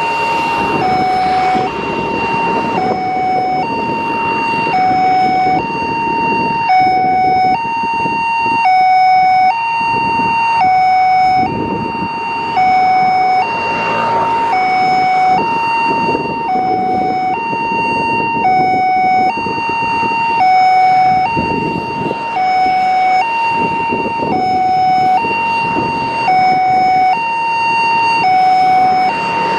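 Two-tone hi-lo siren alternating steadily between a higher and a lower pitch, each held about two-thirds of a second, over a rushing background noise.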